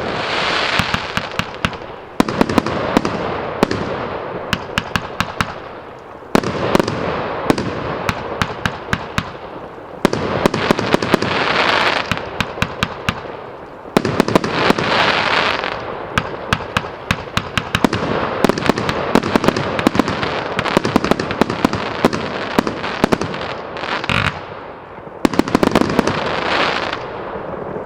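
A 100-shot mould cake firework firing: rapid sharp bangs, several a second, over hissing and crackling, in waves that restart every few seconds, with a short lull near the end.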